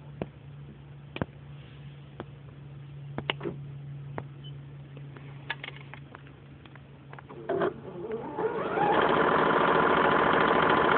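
Janome DC2010 computerized sewing machine: a faint low hum with a few light clicks, then about eight seconds in it starts stitching, running fast and steadily.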